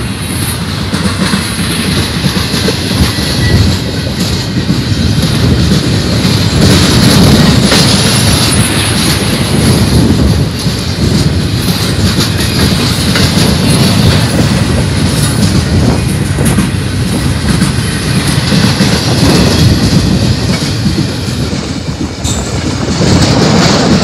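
Double-stack container train's well cars rolling past close by: a steady, loud noise of steel wheels running on the rails.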